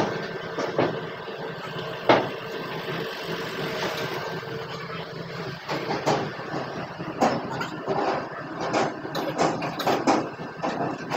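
Trucks driving off a ferry over its steel loading ramp: engines running under repeated metallic clanks and bangs from the ramp, the clanks coming thicker in the second half.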